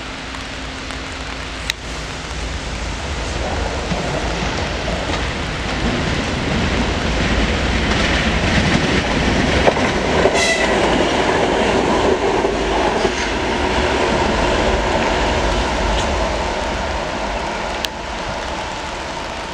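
Twin-section 2TE25K 'Peresvet' diesel locomotive running light past at speed: its diesel engines and wheels on the track build up as it approaches, are loudest as it passes, then fade. A brief high-pitched sound comes about ten seconds in.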